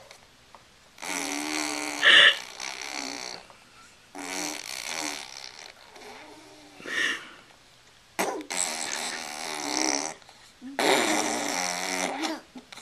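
A young child making silly buzzing vocal noises in about five short bursts with pauses between them.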